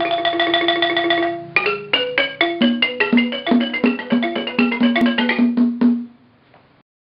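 Short instrumental jingle of struck notes: one note repeated rapidly for about a second and a half, then a quick melody that ends about six seconds in.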